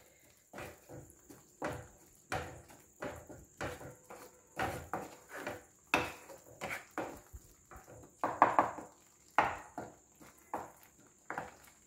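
Wooden spatula stirring and scraping thick masala paste around a nonstick kadai, in short irregular strokes roughly one or two a second, as the onion-tomato masala is fried with a splash of chickpea cooking water.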